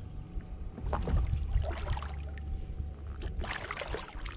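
Water splashing with scattered knocks as a common carp, shot with a bowfishing arrow, is hauled in on the line alongside the kayak. Bursts of splashing come about a second in and again near the end, over a steady low rumble.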